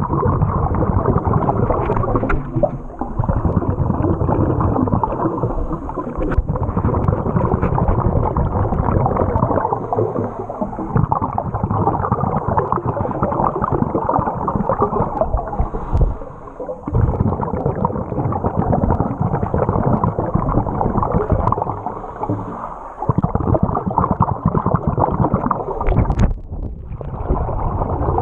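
Muffled underwater rumbling and gurgling picked up by a camera submerged in a river. The noise dips briefly every six or seven seconds, and there is a sharp click near the end.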